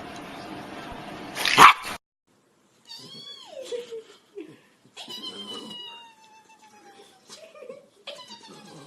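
A short, loud burst of noise about one and a half seconds in, then, after a cut, a pet's drawn-out wailing cries, each sliding down in pitch. The third cry starts near the end.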